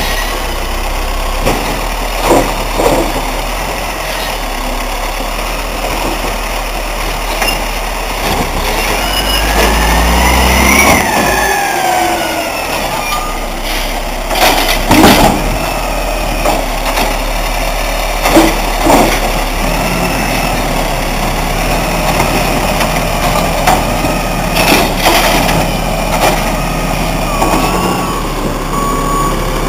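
Peterbilt Curbtender automated side-loader garbage truck working a cart: the diesel engine runs and revs up and back down as the hydraulic arm lifts the cart, followed by several loud clanks as the cart is dumped into the hopper and set back down. Near the end the truck pulls away.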